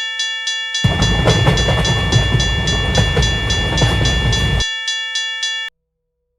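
Japanese railroad crossing warning bell ringing in a steady rhythm, about three rings a second. A train passes noisily from about a second in until near five seconds. The bell cuts off suddenly near the end.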